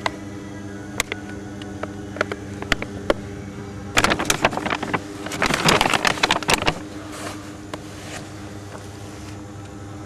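Plastic sack crinkling and crackling as it is handled and opened, loudest in a burst from about four to seven seconds in. Underneath is a steady mechanical hum.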